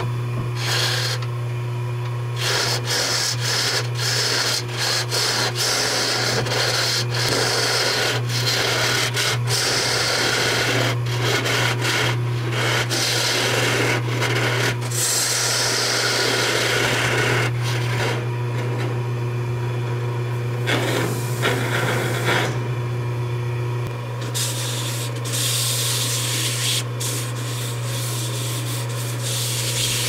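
Jet wood lathe motor running with a steady hum while a carbide chisel scrapes and cuts the spinning wood blank, the scraping noise starting and stopping abruptly many times.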